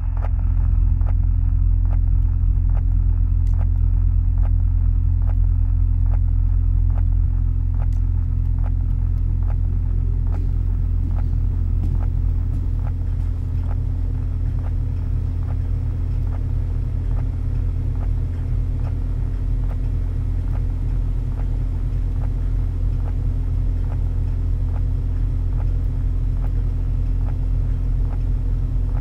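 Steady, loud low rumble with a deep hum, with faint regular ticks running through it.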